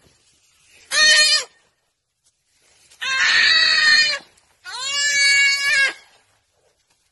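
Distress bleats from a hoofed prey animal pinned down by a cheetah: a short call about a second in, then two long drawn-out ones.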